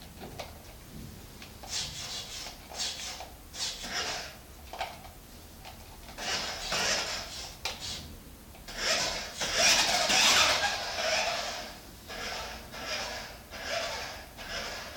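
Nikko 206 toy RC car's small electric drive motor and gearbox whirring in short, irregular bursts of a second or two, stopping and starting again.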